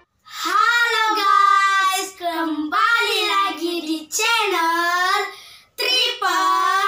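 Two boys singing a short tune together, in four long phrases with brief pauses between them.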